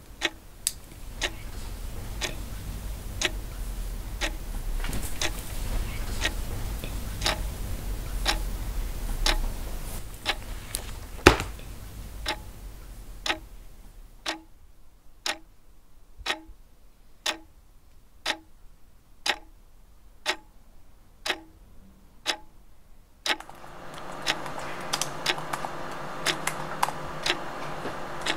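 A clock ticking steadily, about one tick a second. A low rumble lies under the ticks for the first half, and a steady hum with several tones comes in near the end.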